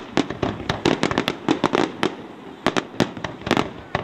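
Pains Fireworks aerial display shells going off in a rapid, irregular string of sharp bangs, some bunched close together, with a short lull about halfway.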